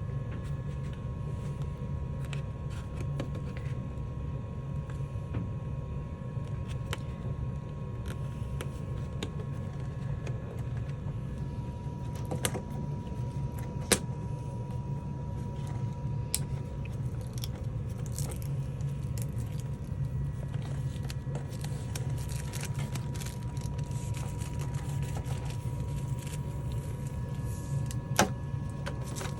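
Protective film being peeled off a painted clear plastic RC car body: scattered crackles and sharp clicks, thicker in the second half, over a steady low background hum.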